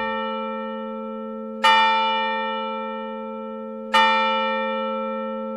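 A single church bell tolling at the same pitch: the ring of one stroke fading, then two more strokes a little over two seconds apart, each ringing on and slowly dying away.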